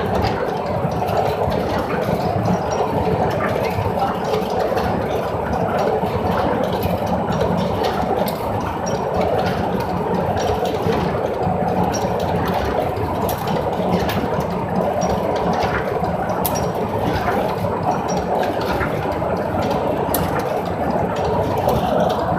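Automatic reinforcement-cage spot welding machine running: a steady, dense mechanical drone with sharp clicks now and then.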